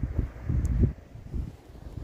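Wind buffeting the microphone in low, rumbling gusts that ease off after about a second.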